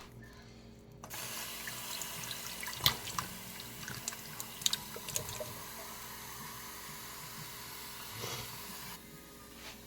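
Water running from a tap into a sink, starting about a second in and stopping near the end, with a few sharp clicks and clatters along the way.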